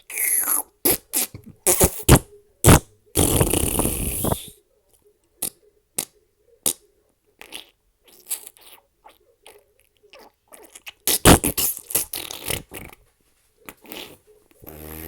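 A string of fart sounds: several short bursts, then one longer, noisy one lasting about a second and a half. After that come scattered short pops and a second quick cluster of bursts about two-thirds of the way through.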